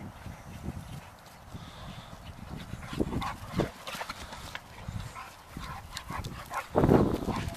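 Two young dogs, an American bulldog and a Staffordshire bull terrier, playing together: short, irregular dog noises, with the loudest burst about seven seconds in.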